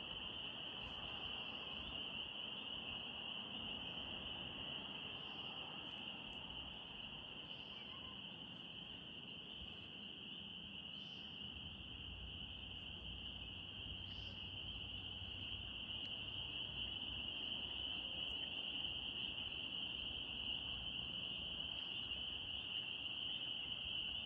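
Chorus of spring peepers: many small frogs calling at once, merging into a steady, high-pitched ringing that never breaks.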